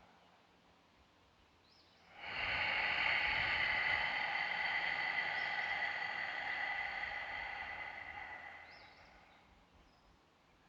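One long, slow breath close to the microphone, swelling in about two seconds in, held for several seconds and fading away gradually, as in paced meditation breathing.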